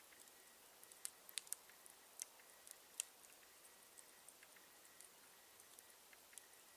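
Campfire crackling: scattered sharp pops and snaps from burning wood, a cluster of louder ones in the first three seconds, then sparser and fainter.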